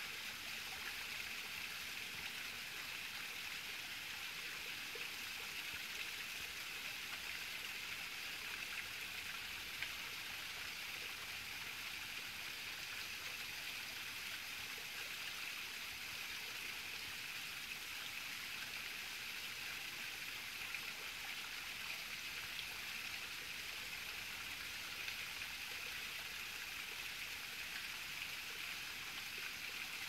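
Small creek waterfall trickling over a stone ledge into a pool: a steady splashing hiss of falling water, with a few faint ticks now and then.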